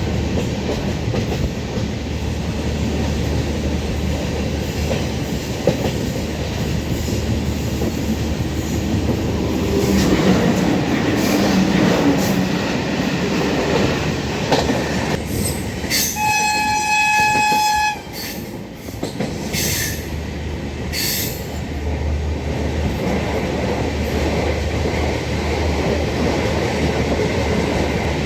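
Passenger train running, heard from a coach window: a steady rumble with the clickety-clack of wheels over rail joints. About two-thirds of the way through, a train horn sounds once for about two seconds.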